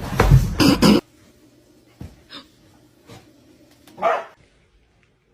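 A dog barking, with a loud cluster of barks in the first second and another single bark about four seconds in.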